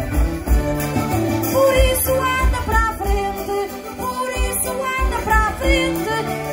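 Button accordions (concertinas) playing an instrumental folk melody, with low bass notes pulsing underneath.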